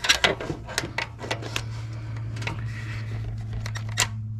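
Hand tools clicking and clinking on metal while the alternator's ground wire is fastened, many quick irregular clicks in the first second and a half and one more near the end. A steady low hum runs underneath.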